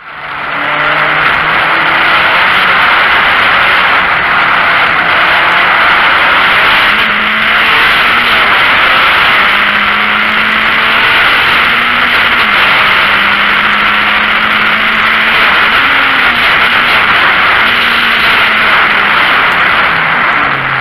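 VW Golf Mk1 race car's four-cylinder engine heard from inside the cabin, pulling hard under acceleration, its pitch climbing and dropping back several times as it changes up through the gears, over loud wind and road noise. The sound fades in over the first second.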